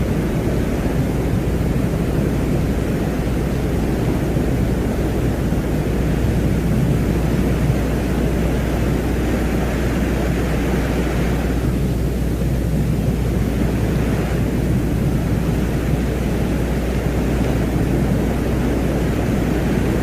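Steady, dense low noise of a 'sounds of Venus' space-ambience track, with a hissing higher layer that drops away about eleven seconds in and faintly returns a few seconds later.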